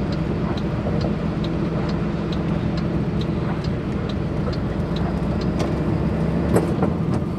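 Truck engine running steadily, heard from inside the cab while driving slowly, with a light regular ticking about twice a second.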